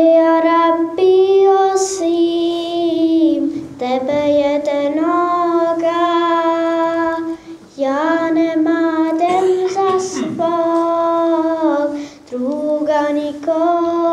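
A single high voice singing a slow, melismatic melody in long held notes, with short breaks between phrases.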